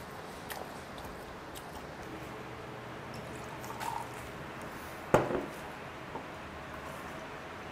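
Liquid poured from a glass bottle into a drinking glass, with a few light clicks and one sharper knock about five seconds in.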